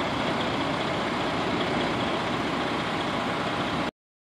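Fire truck's diesel engine idling with a steady, even drone, cutting off abruptly near the end.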